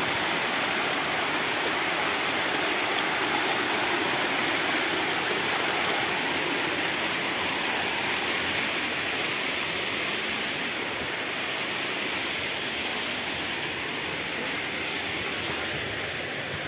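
Shallow mountain stream rushing and splashing over a rocky cascade, a steady rush of water that eases slightly about ten seconds in.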